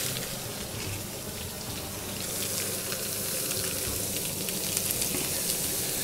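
Cajun-coated walleye fillets frying in hot margarine in a pan: a steady sizzle with fine crackling throughout, as for blackened walleye.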